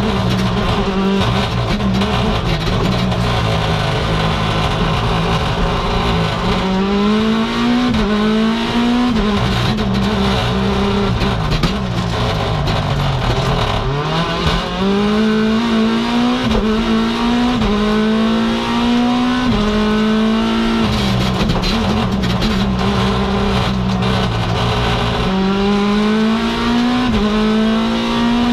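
Mini John Cooper Works WRC rally car's turbocharged 1.6-litre four-cylinder at full stage pace, heard from inside the cabin. The engine climbs through the gears with quick upshifts, drops in pitch under braking with downshifts about halfway through, then pulls hard through the gears again.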